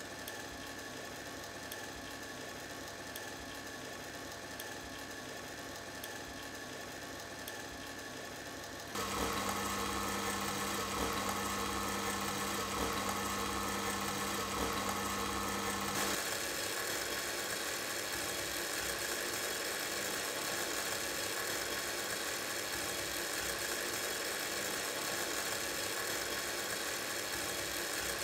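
Steady machine-like hum with a few held tones, which turns abruptly louder and hissier about nine seconds in and changes character again at sixteen seconds.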